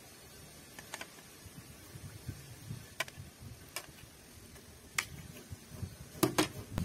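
A spoon knocking lightly against a serving bowl while curry gravy is ladled onto rice: single sharp clicks a second or more apart, then two quick knocks near the end.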